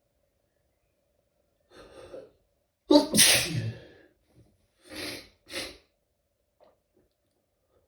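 Stifled sneezes in a sneezing fit: a short breath in, one loud held-back sneeze about three seconds in, then two shorter bursts close together about two seconds later.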